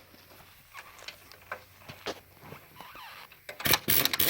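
Light tool clicks and small knocks, then about three and a half seconds in a large pneumatic impact wrench starts hammering loudly on a bolt, running short of air pressure.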